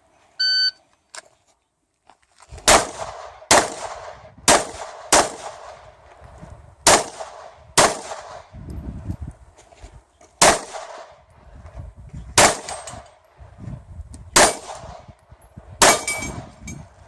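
Electronic shot-timer start beep, then a string of about ten pistol shots fired at uneven intervals. The first shots come roughly a second apart and the later ones about two seconds apart.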